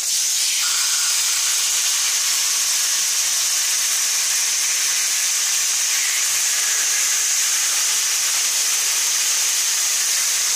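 Barbecue-marinated pork fillet steaks frying in hot oil in a non-stick frying pan: a steady sizzle.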